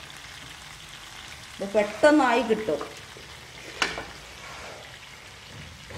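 Masala-coated prawns frying in oil in a nonstick pan, a steady sizzle, with a wooden spatula stirring and turning them. A brief, loud pitched sound about two seconds in, and a sharp knock just before four seconds.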